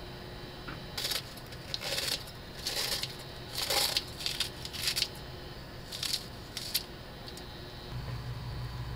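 Kitchen scissors snipping thick stalks of green onion (daepa) into a pot, about seven sharp snips at uneven intervals. A low steady hum comes in near the end.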